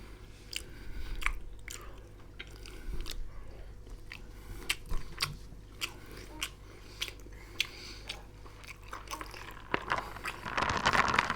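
Close-up ASMR eating: a person chewing and biting food, with irregular sharp, wet clicks of the mouth. Near the end there is a louder, denser burst of crunching.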